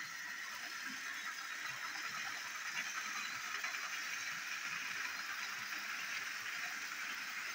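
Battery-powered toy engine (Molly) running on plastic track: the steady whir of its small motor, with the rattle of four trucks and a brake van rolling behind.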